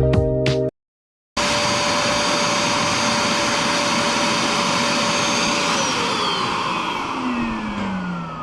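Background music cut off after a fraction of a second, then the suction motor of a Bissell SpotClean portable carpet cleaner running steadily. In the last few seconds it is switched off and winds down, its whine falling in pitch as it fades.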